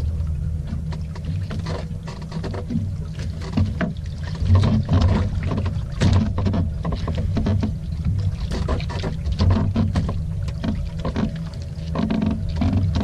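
Small boat at sea: a steady low rumble with irregular splashing and knocking of water against the hull.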